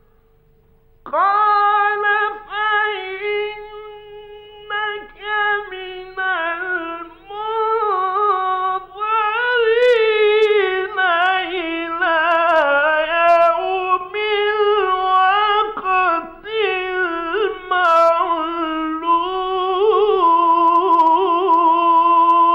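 A man's voice reciting the Quran in the melodic mujawwad style, in long, high, ornamented phrases with wavering pitch, starting about a second in. This is a 1950s Egyptian radio recording, with a faint steady tone running underneath.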